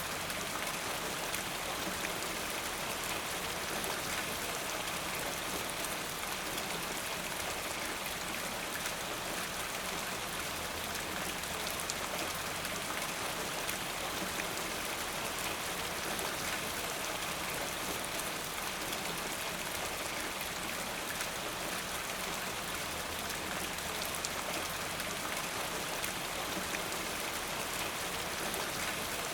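Steady rain falling: an even hiss of countless drops that keeps on without breaks or swells.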